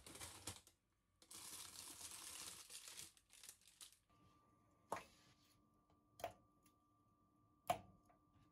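A plastic freezer bag crinkling and rustling as it is handled and taken out of a freezer drawer. This is followed by three sharp clicks, about a second and a half apart, over a faint steady hum.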